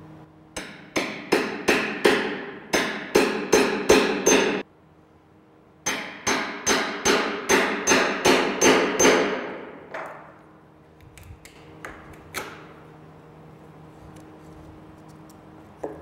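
A wood chisel driven into plywood by quick hammer blows, two runs of about ten strikes each at roughly three a second with a short pause between, then a few lighter taps. The chisel is breaking away the top layers inside a hole-saw cut so the drilling can finish.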